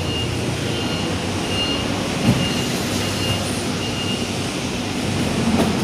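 Diesel truck engine idling steadily, with faint high beeps repeating about every 0.7 s and a single knock a little over two seconds in.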